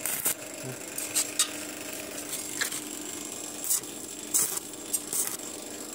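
A few short, sharp metallic clicks and taps as stainless steel square tubes are handled and set in place against each other, over a faint steady hum.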